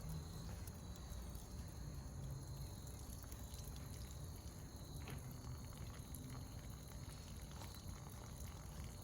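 Faint, steady hiss and trickle of water leaking from a garden-hose repair coupling under mains pressure; the fitting is not sealing.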